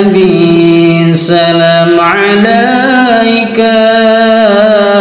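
A man chanting unaccompanied in a melismatic Islamic style, one long held phrase bending through ornamented turns.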